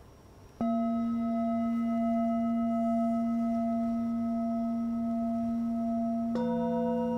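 Tibetan singing bowls struck with a wooden mallet. A hand-held brass bowl is struck once about half a second in and rings on with a steady tone and overtones. Near the end, a larger bowl on the floor is struck and adds lower tones over it.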